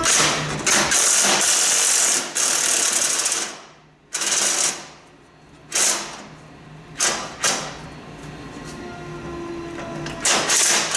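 Impact wrench hammering at bolts: one long run of about three seconds, then a series of short bursts as it tries at a stubborn fastener.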